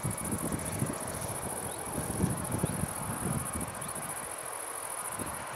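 Insects trill steadily in a fast, even pulse, while gusts of wind thump on the microphone. Near the end, the broad hiss of the approaching Airbus A320's IAE V2500 turbofans begins to build.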